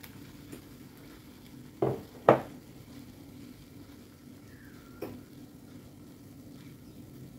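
Beaten egg frying faintly in a square tamagoyaki pan on a small gas stove, with two sharp clinks of dishes about two seconds in and a lighter tap about five seconds in.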